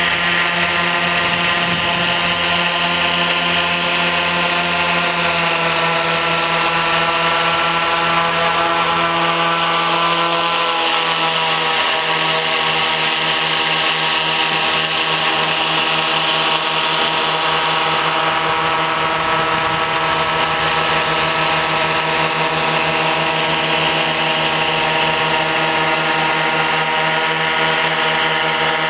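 Propeller motors of a remote-control blimp, heard close up from the blimp itself, running with a steady drone; the pitch drops a little about eleven seconds in.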